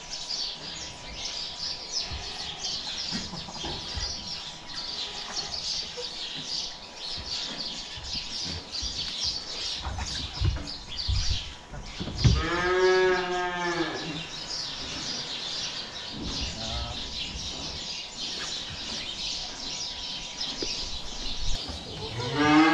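A cow moos: one long call about twelve seconds in that rises and falls in pitch, and another starting right at the end. Small birds chirp steadily throughout.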